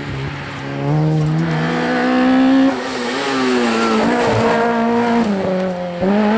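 Rally car engines revving hard as the cars drive through a junction. The pitch climbs, then drops sharply about two and a half seconds in, where the sound jumps to another car, and it jumps again near the end.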